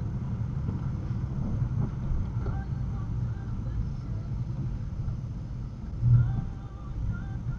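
Low road and engine rumble heard inside a car's cabin as it slows in city traffic, with a brief louder low thump about six seconds in.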